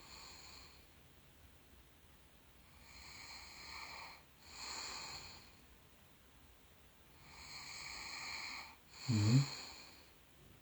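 A woman snoring on purpose while pretending to sleep: soft, breathy snores about every second or two, then a louder, lower-pitched snort near the end.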